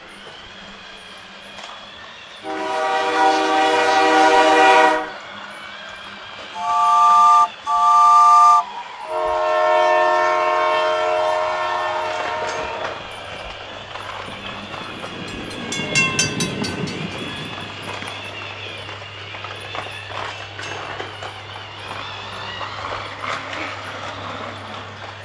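Toy trains' electronic horn sounds: a long toot a couple of seconds in, two short beeps around seven seconds, and a longer toot from about nine seconds that fades away, over the steady hum of a small toy-train motor. A short rattle comes about sixteen seconds in.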